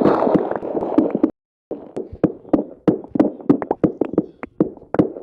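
A dense rush of noise that cuts off abruptly about a second in, then after a short pause a quick, irregular string of sharp taps and knocks, several a second.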